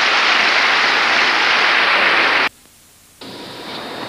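Large arena crowd applauding, a dense, steady clapping. It cuts out abruptly about two and a half seconds in and returns quieter a moment later.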